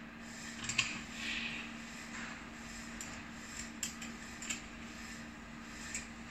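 Small metal clicks and clinks of screws, washers and nuts being handled and threaded by hand at a joint of a steel-tube chair frame, with a few brief scrapes. A steady low hum runs underneath.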